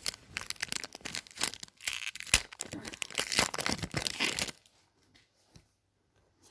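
Football card pack wrapper being torn open and crinkled, a dense crackling rustle that stops about four and a half seconds in.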